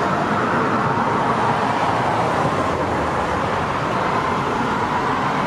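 Steady road-traffic noise, an even rushing sound with no breaks.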